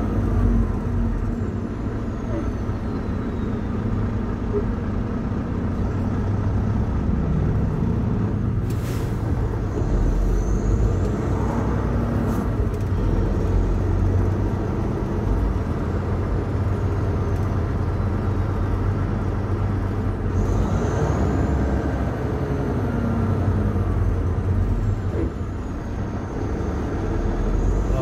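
Semi truck's diesel engine heard from inside the cab at low town speed, its pitch and a faint high whistle rising and falling twice. A short hiss comes about nine seconds in.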